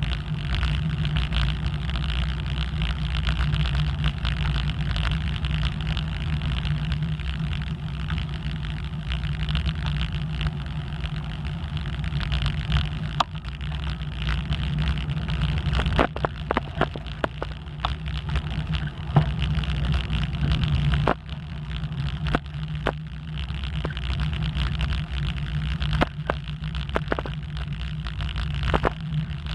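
Wind rushing over the microphone with tyre and road noise from a bicycle riding along rough asphalt. From about halfway through, scattered sharp clicks and knocks as the bike rattles over bumps in the pavement.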